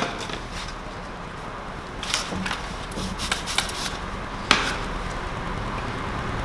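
Sheet of paint protection film being handled and its backing liner peeled off: scattered light crackles and ticks, with one sharper click about four and a half seconds in.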